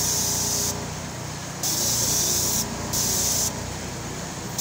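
A pressure sprayer's hose nozzle hissing out a mist spray in three bursts: one cuts off under a second in, a longer one runs from about a second and a half in, and a short one follows. A steady low engine hum runs underneath.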